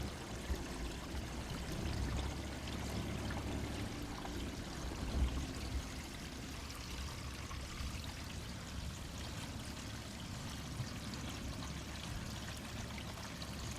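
Water running steadily through the house plumbing with the supply just turned back on, a continuous even rush.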